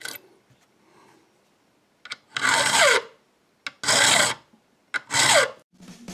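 A round needle file rasping across the cuts of a metal key clamped in a vise: three strokes, each about half a second long, over the last four seconds. The file is deepening the key's cuts to fit the lock's pins.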